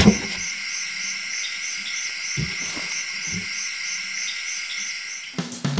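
Forest ambience: a steady chorus of high-pitched calling insects or frogs, with one call pulsing about three times a second. A loud knock comes right at the start as the wooden release crate is opened, and a few soft thuds follow between two and three and a half seconds in. Music starts just before the end.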